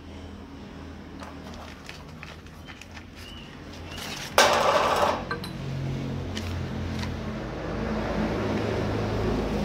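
Stiff cement-sack paper rustling and crinkling as it is folded and handled around a grinder disc on a metal sheet, with a sudden loud rustle or scrape about four seconds in. A low rumble builds near the end.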